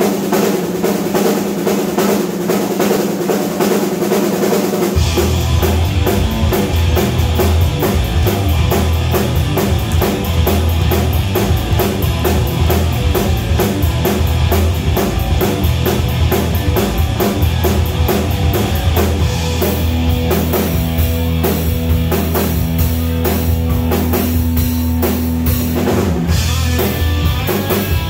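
A live rock band of electric guitar, electric bass and drum kit playing an instrumental passage with a steady driving beat. About five seconds in, the bass and kick drum come in and fill out the low end.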